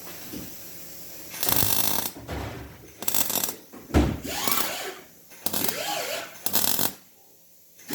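Hand-tool work in a car workshop: five short, loud bursts of clattering mechanical noise, separated by pauses.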